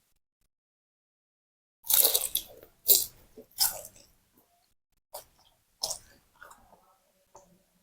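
Close-up eating of fried round tofu: three loud crunchy bites and chews a couple of seconds in, then quieter chewing.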